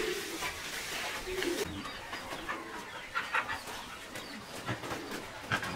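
Scattered short animal calls among light knocks and clicks.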